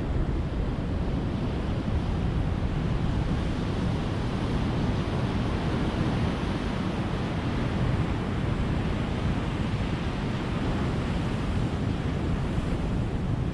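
Ocean surf: a steady rush of waves washing on a beach, with no single wave standing out.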